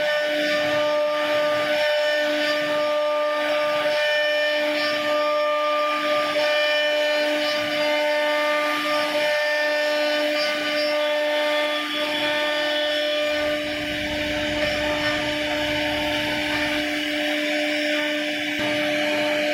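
CNC router spindle running at a steady, high-pitched whine while its bit carves a relief pattern into a wooden door panel, with the rough hiss of the cutting wood. A low hum joins for a few seconds past the middle.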